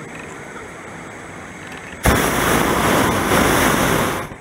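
Hot air balloon's propane burner firing overhead: a loud, steady blast that starts abruptly about halfway in, lasts about two seconds and cuts off near the end.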